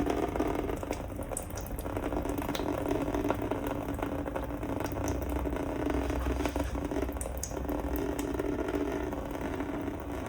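Liquid coolant draining from a graphics card's AIO cooling loop and trickling steadily into a bucket, with a few faint clicks.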